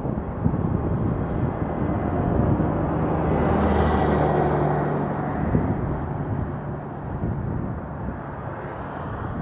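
A tanker truck passes close by, its engine hum and tyre noise swelling to a peak about four seconds in and then fading as it draws away.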